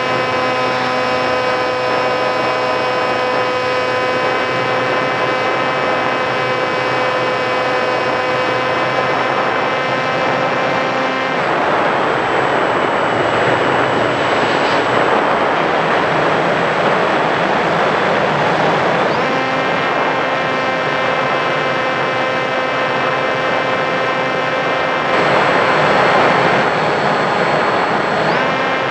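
Sky Surfer RC plane's electric motor and propeller heard from a camera on board: a steady whine that cuts off about a third of the way in, leaving only the rush of air for several seconds while the plane glides, then starts again a little past two-thirds. Near the end the rush of air swells over the whine.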